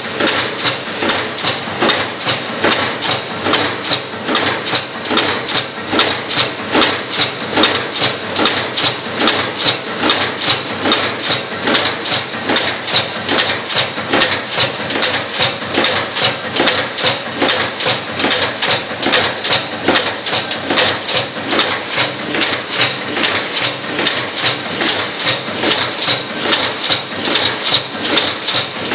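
Automatic spoke nipple rivet-shape forming machine running, its tooling striking in a fast, even rhythm of sharp clacks, several a second.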